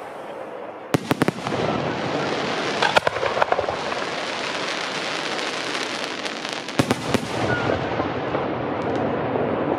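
Fireworks display: clusters of sharp bangs from bursting shells about a second in, around three seconds and near seven seconds, with steady crackling in between.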